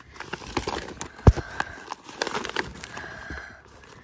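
Rummaging and handling noises: scattered clicks, light knocks and rustling, with one heavy thump about a second in.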